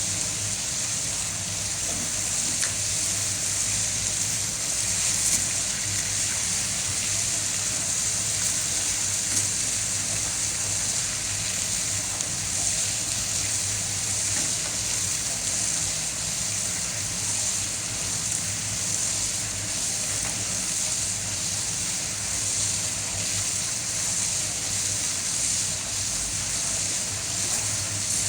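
Steady rush of water in a water treatment clarifier tank with a hiss, over a low, even machine hum.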